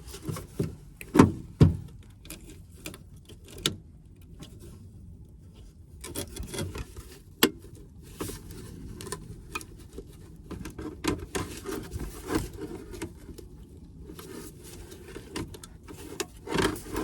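Hands working to remove a car's engine computer and wiring: scattered clicks, knocks and rubbing, with two sharper knocks about a second in and a crisp click midway.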